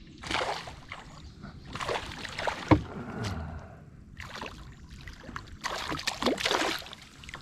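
Water splashing in irregular bursts beside a kayak as a hooked fish is fought and brought in, with a sharp knock on the kayak about two and a half seconds in.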